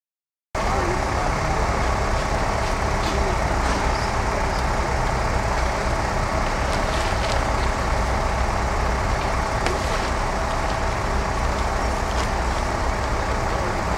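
Steady rumble of road traffic and engines, with a few light clicks and knocks scattered through.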